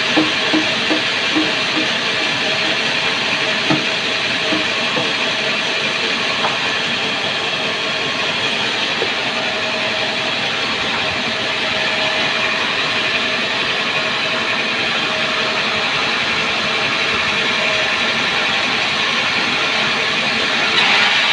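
Sawmill saw cutting through a sengon log, making a steady loud hissing run of machine noise.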